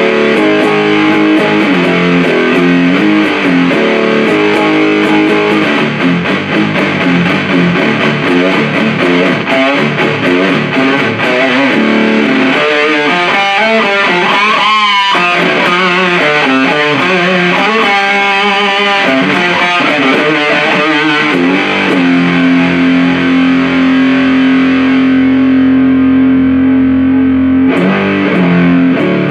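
Electric guitar through a 77 Fuzz Blender, a Big Muff-style fuzz pedal, playing a heavily fuzzed riff. About halfway through come bent, wavering notes. Later a chord is held for several seconds before the riff starts again.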